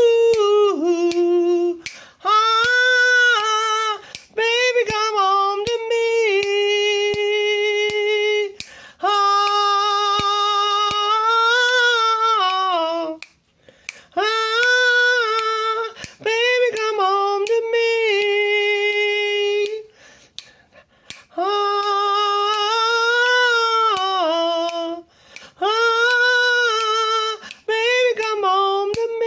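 A woman's voice singing long, wordless "ooh" notes in a doo-wop melody, a cappella, with finger snaps keeping the beat. The notes break off briefly three times, about halfway, two-thirds of the way and near the end.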